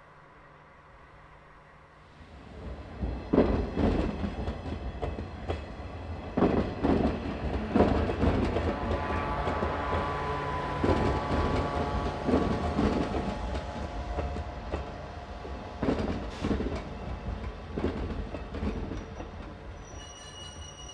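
Train wheels rolling slowly over rail joints. The clatter starts about two seconds in and comes as uneven groups of knocks, with a faint wheel squeal about the middle.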